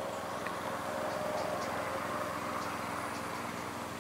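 Steady background noise that swells gently in the middle, with a few faint ticks.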